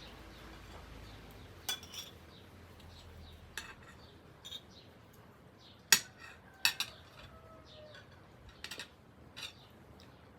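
Cutlery clinking against dishes in scattered single knocks, about eight of them, the loudest about six seconds in.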